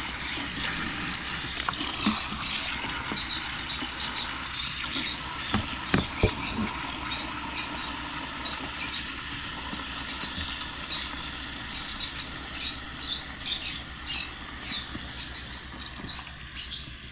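Small portable washing machine running, churning water and clothes in its tub, with a few knocks about six seconds in and many short high squeaks that become more frequent toward the end.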